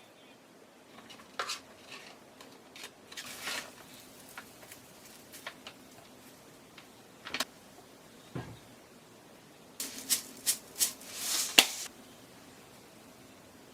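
Kitchen handling sounds: scattered sharp clicks and light knocks, with one dull thud past the middle and a quick run of clicks near the end.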